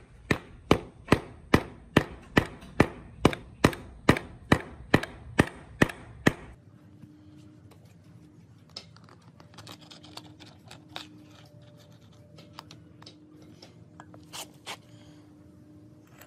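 About fifteen even hammer blows, a little over two a second, on a steel punch set against the bearing in a mini motorbike's wheel hub, knocking the bearing out. The blows stop abruptly a little past halfway, and a few faint clicks follow.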